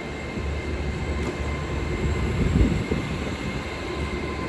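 Class 805 bi-mode train departing on the move, a steady low hum with a faint steady whine above it and a brief low swell about two and a half seconds in.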